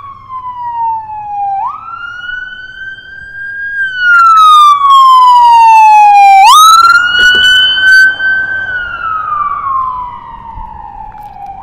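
Ambulance siren wailing in slow cycles: the pitch jumps up sharply, climbs a little, then slides down over a few seconds. It grows much louder about four seconds in as the ambulance passes close by, and fades again near the end.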